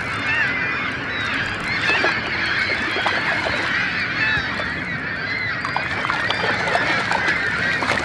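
A flock of birds calling together, many short, high calls overlapping without a break.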